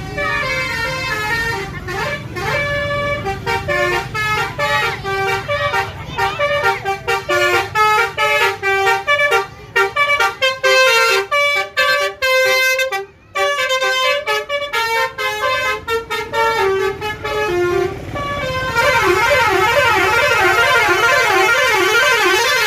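A bus's telolet basuri musical air horn playing a tune of short, stepped notes. About three-quarters of the way through it switches to a fast warbling pattern, with the pitch sweeping up and down repeatedly.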